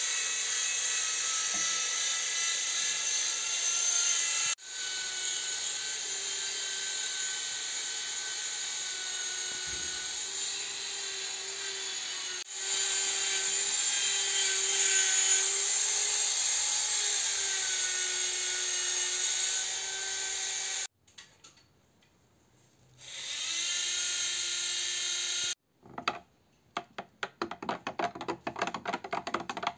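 A machine's motor runs with a steady hum and a high whine, its pitch wavering slightly, cut off abruptly several times. Near the end comes a fast run of clicks and scrapes: the metal stirring stick knocking against a ridged plastic mixing cup.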